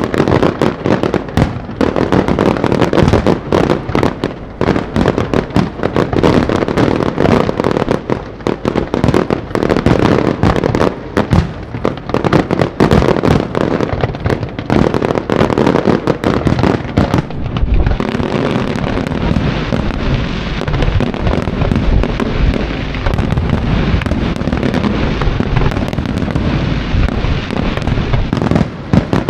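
Professional fireworks display: a rapid, continuous barrage of shell bursts and bangs. From about 18 seconds in, the separate bangs merge into a denser, more continuous noise.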